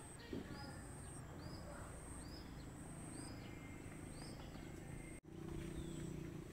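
A bird repeating a short high call about once a second, over the pulsing chirp of insects. The sound drops out briefly about five seconds in.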